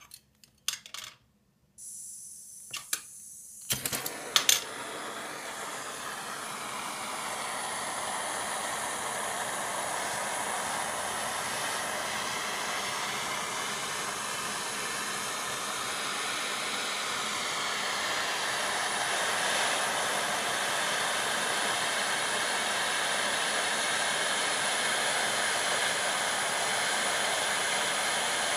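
Hand-held gas torch: a few handling clicks and a faint hiss of gas, then the torch lights about four seconds in and its flame burns with a steady hiss, a little louder after about eight seconds. The flame is heating copper pieces from below to fuse their powdered enamel.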